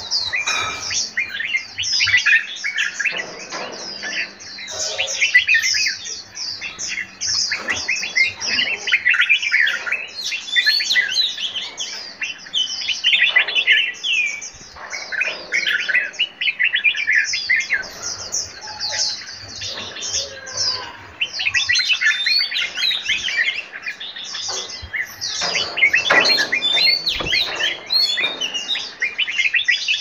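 A mix of songbirds in an aviary chirping and singing at once, a dense, unbroken chorus of short overlapping chirps and whistles.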